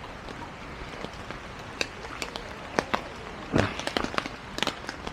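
Light rain pattering, with a campfire crackling: a steady hiss broken by scattered sharp ticks and pops, and a duller knock about three and a half seconds in.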